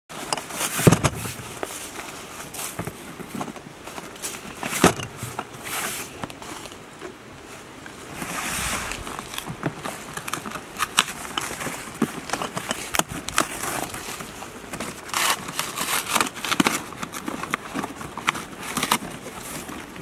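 Cardboard cases of clay targets being handled on a table: irregular knocks and scrapes of the boxes, with rustling of cardboard and packing paper. The loudest knocks come about a second in and again about five seconds in.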